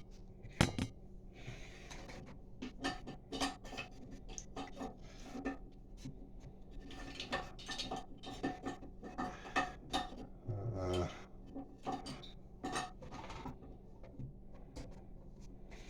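Toilet flush valve tower and flush lever being handled and worked loose inside the tank: irregular clicks, clinks and scraping of hard parts, with one duller knock about two-thirds of the way through.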